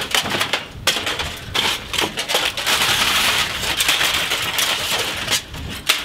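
Loose, crumpled sheets of aluminium foil crinkling and crackling as they are grabbed and pulled out of a microwave, in a run of sharp, irregular rustles.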